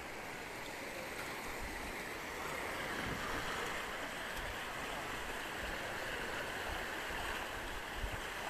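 Steady rushing hiss of flowing floodwater and falling rain, swelling slightly about three seconds in.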